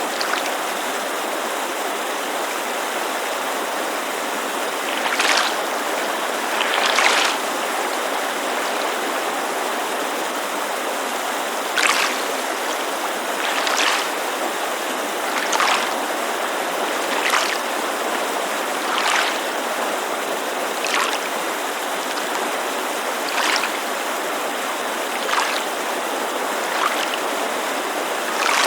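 Small waves lapping against a lakeshore in short splashes every couple of seconds, over the steady rushing of a creek.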